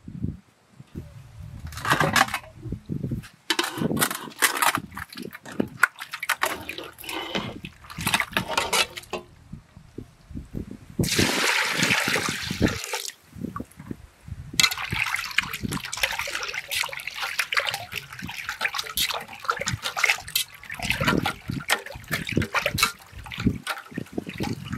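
Hands washing raw chicken liver in a metal pot of water: irregular splashing and sloshing, with water poured in steadily for about two seconds near the middle.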